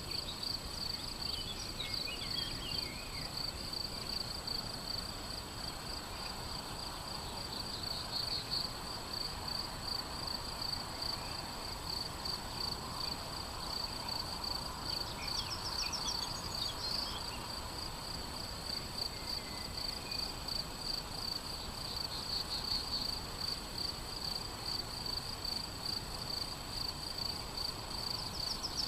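Continuous high, rapidly pulsing insect chirping in a grassy field, cricket-like, with a few short bird calls breaking in now and then.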